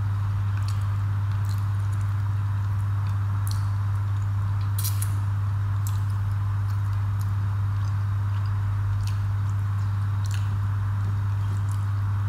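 A steady low hum, with scattered soft clicks and wet smacks of eating by hand: fingers mixing rice and fish curry on a plate, and chewing.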